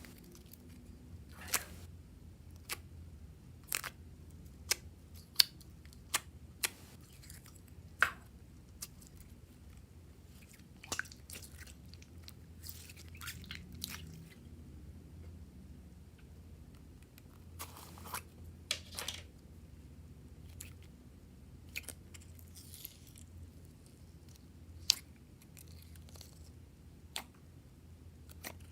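Irregular sharp clicks and crunches, spaced from a fraction of a second to a few seconds apart, over a faint steady low hum.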